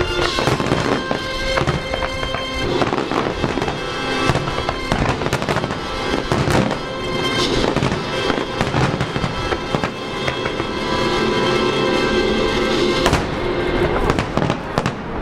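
Fireworks going off: repeated bangs and crackling bursts, over music with long held notes that mostly fades out near the end.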